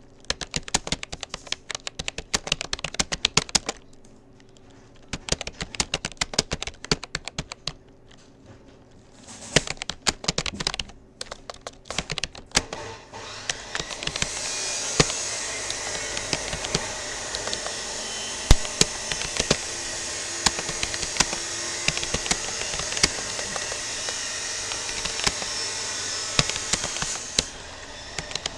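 Typing on a Rapoo computer keyboard: rapid bursts of key clicks with a few seconds' pause between them. About halfway through a loud steady rushing noise starts and runs under the keystrokes, stopping shortly before the end.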